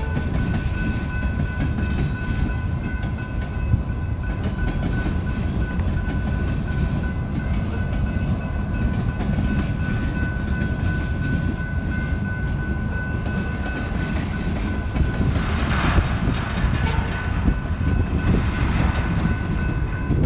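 Freight cars of a slow manifest train rolling past: a steady rumble of wheels on rail with clickety-clack. A steady high ringing tone sits over it, and there is a brief harsher, brighter scraping burst about three-quarters of the way through.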